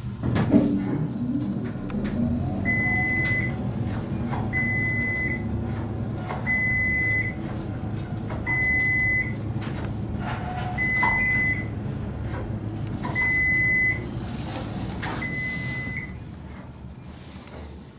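Dover/Lagerquist traction elevator car travelling down with a steady low hum, starting with a clunk. Short high electronic beeps of the same pitch sound about every two seconds, seven in all, in step with the floors going by, and the hum eases off near the end as the car slows for its stop.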